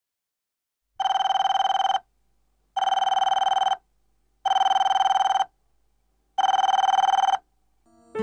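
Mobile phone ringing with an old-style telephone ring: four rings of about a second each, evenly spaced, each with a fast trill.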